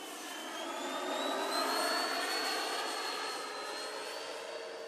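Schübeler HDS 120 mm electric ducted fans of a 1/19-scale Airbus A350 model airliner flying past, with a high whine over a rush of air. The whine climbs in pitch over the first two seconds. The sound is loudest about two seconds in, then eases off.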